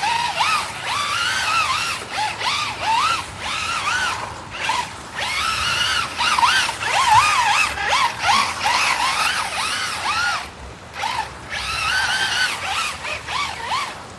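Brushless electric motor of a Traxxas Rally VXL RC car whining, its pitch rising and falling in quick arcs again and again as the throttle is worked, over a steady hiss of rain.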